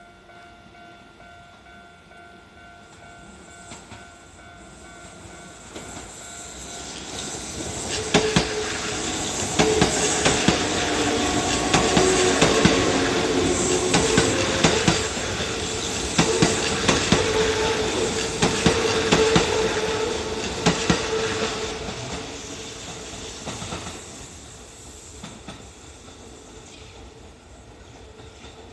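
Kintetsu 3200 series electric train passing a level crossing: it approaches from about 4 s in and is loudest from about 8 to 22 s, with the clatter of wheels over rail joints and a steady hum, then fades away. A level crossing bell rings steadily before the train arrives.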